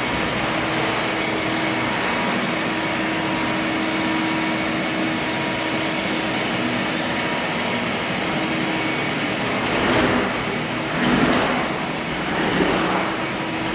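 A machine running steadily, a constant whir with a steady hum, swelling in loudness three times near the end.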